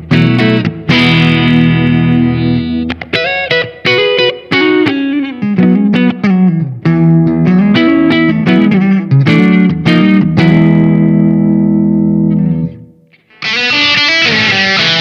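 SQOE SETL980 electric guitar with an HS Alnico pickup set, played through an amp with effects: ringing chords and single-note phrases. After a short break near the end, a heavily distorted strummed section follows.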